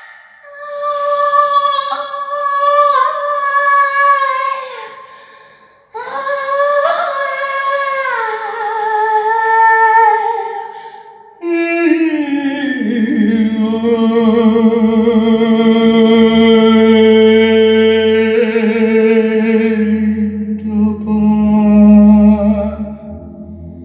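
Unaccompanied singing. A woman's high voice sings long, gliding phrases with pauses between them. About halfway through, a deep male voice comes in and holds a low, steady, overtone-rich chant.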